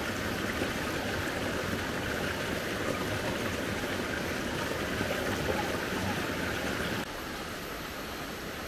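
River water flowing, a steady rush. Near the end it drops abruptly to a quieter rush.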